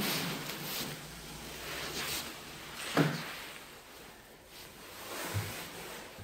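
A sliding window shut with a sharp knock of the sash against the frame about three seconds in, amid rustling handling noise, with a softer low thump near the end.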